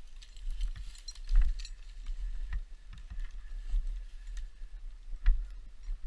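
Irregular clicks and knocks over a low rumble, with a sharper knock about five seconds in.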